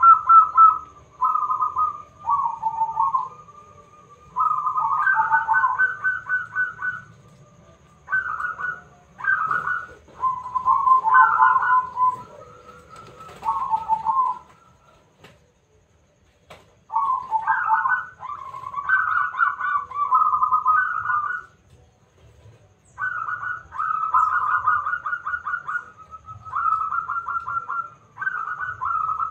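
Zebra dove cooing: phrase after phrase of fast, stuttering trilled notes, with a pause of about two seconds just after the middle.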